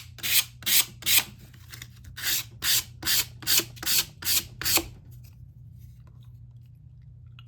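Sandpaper rubbed back and forth on the edge of a balsa wood rocket fin, about two to three strokes a second. There is a short pause after about a second, and the sanding stops about five seconds in.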